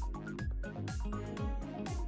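Background music with a steady beat of deep kick drums, their pitch dropping on each hit, and light percussion over it.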